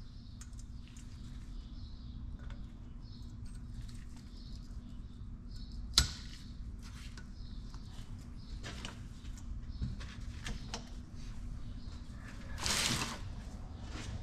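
Light metal clicks and small squeaks of hand work on a Detroit Diesel 2-53 cylinder head with a valve spring compressor, fitting the valve springs. There is one sharp click about six seconds in and a brief rushing noise near the end, over a steady low hum.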